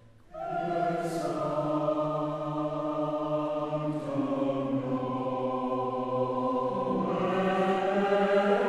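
Choral music: voices holding long, slow chords in a chant-like style. The music comes in just after the start and shifts chord about four and seven seconds in.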